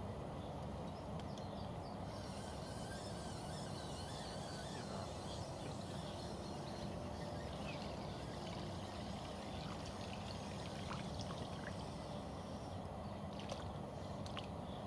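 Steady rushing noise of river water at the bank, with faint high chirps now and then and a few light clicks near the end.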